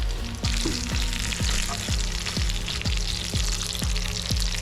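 Panko-crumbed snapper fillets frying in hot oil: a steady sizzle that grows louder about half a second in. Background music with a steady beat runs underneath.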